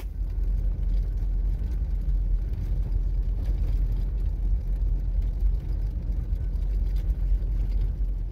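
Car running, a steady low rumble of engine and road noise with no clear pitch.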